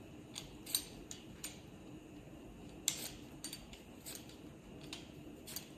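Knife cutting potatoes on a cutting board: light, irregular clicks and knocks, about one or two a second, over a faint steady hum.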